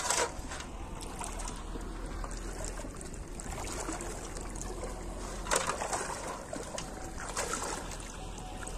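Shallow water sloshing and splashing as a person wades through it and moves a metal basin along the surface. It is louder at the start and again about five and a half seconds in.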